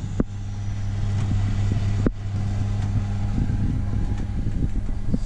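Electric fan oven's convection fan running with a steady hum through the open door, with two short knocks as a baking tray is slid onto the rack.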